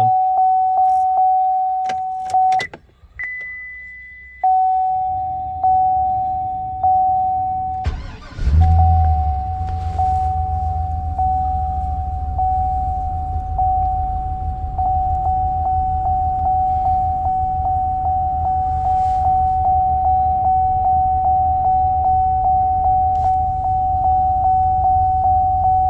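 Chevrolet Silverado's dash warning chime dinging repeatedly with the engine off, with a higher beep briefly about three seconds in. About eight seconds in the starter cranks and the 6.0-litre V8 catches and idles, the chime ringing on faster over it; after this restart the intermittent misfire is gone and it is running smooth.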